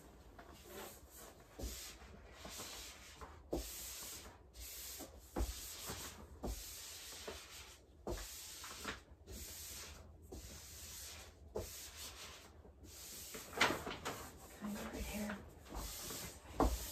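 Peel-and-stick wallpaper being rubbed and smoothed onto a wall by hand, in short, irregular rubbing and rustling strokes, with a few light knocks.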